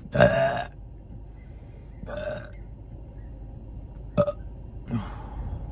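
A man burps loudly right at the start, followed about two seconds later by a softer vocal sound. A short sharp click comes a little after four seconds in.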